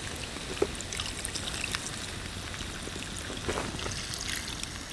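Venison stock poured from a glass jar into a skillet of vegetables over a campfire: a steady pouring trickle with scattered light crackles.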